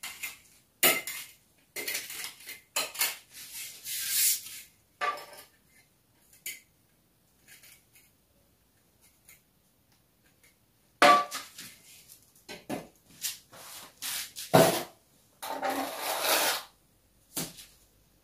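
Steel masonry tool scraping and clinking against bricks and clay mortar as squeezed-out clay is struck off a brick course's joints. It comes in short bursts, with a quiet stretch of several seconds in the middle.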